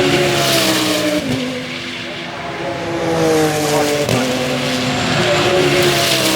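Audi R8 LMS Ultra race car's V10 engine at high revs under acceleration, its note breaking with quick gear changes about a second in and again about four seconds in.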